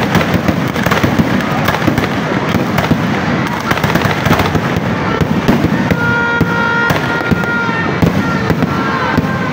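Fireworks display: aerial shells bursting one after another, a dense, unbroken run of bangs and crackles.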